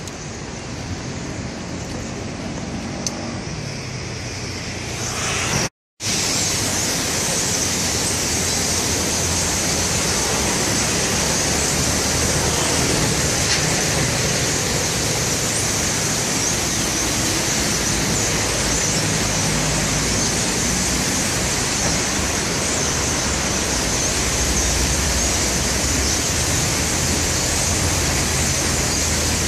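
Wind rushing through trees, a steady loud rush that follows a short break about six seconds in; the first few seconds are quieter.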